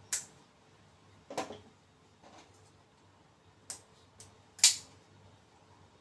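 Sharp metallic clicks from a push-button (spring-loaded) folding knife being handled, six in all; the loudest comes about four and a half seconds in with a short ring, as the blade snaps open and locks.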